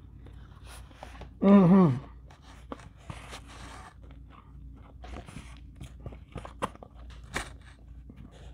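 A person chewing fried fish close to the microphone, with small wet clicks and crunches of the mouth. About a second and a half in, a brief voiced hum, the loudest sound here.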